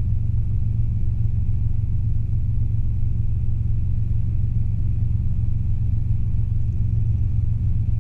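Robinson R22 helicopter in flight, heard inside the cabin: a steady, even drone of engine and rotor with a deep hum at its core.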